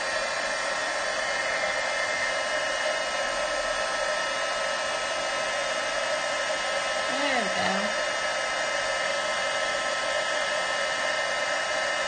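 Embossing heat tool blowing steadily, a loud even fan rush with a faint motor whine, melting clear embossing powder on the stamped cardstock until it turns shiny.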